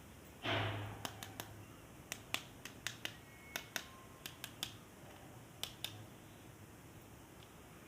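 A short scraping rustle, then about fifteen sharp, irregular clicks and taps of plastic toy parts being handled.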